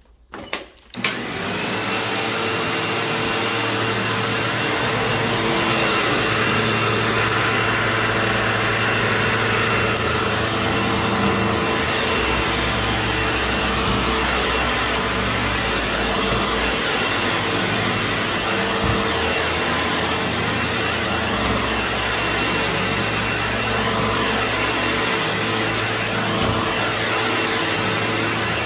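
SEBO upright vacuum cleaner switched on about a second in, after a couple of clicks, then running steadily with a faint high whine as it is pushed over carpet.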